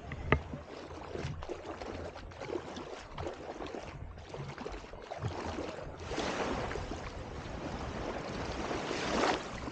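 Rushing, splashing water with wind noise, with a sharp click just after the start; the water noise swells louder about six seconds in and peaks near the end.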